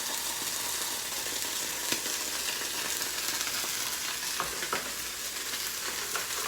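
Chicken and shrimp frying in a pan with cocktail sauce just poured over them: a steady sizzle with a few light clicks.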